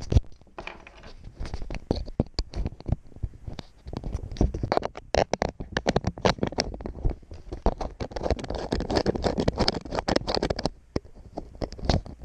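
Handling noise on the action camera's own housing as it is pulled off one mount and fitted onto a mini flexible tripod: fingers scratching and scraping on the plastic with rapid clicks and knocks, a sharp knock at the very start.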